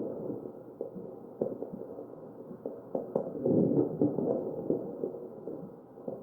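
Chest sounds of a patient on a mechanical ventilator, picked up through an electronic stethoscope: one ventilator breath swells and fades about three to four and a half seconds in, with short crackles, sharp clicks, scattered before and through it.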